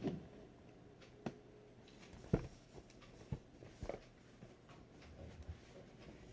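A product box being handled and worked open: a few scattered taps and knocks, the loudest about two seconds in.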